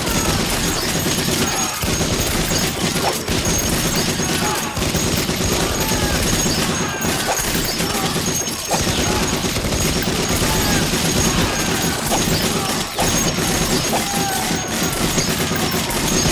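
Sustained, rapid gunfire from several guns, shots overlapping in a dense, unbroken barrage.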